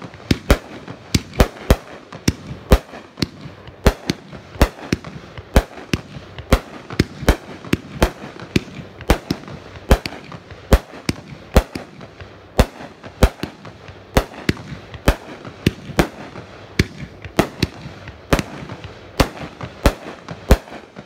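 A 500-gram, 25-shot consumer fireworks cake of peony and mine shots, firing in a zigzag: a rapid, irregular string of sharp launch thumps and bursting bangs, about two a second, that stops abruptly at the end.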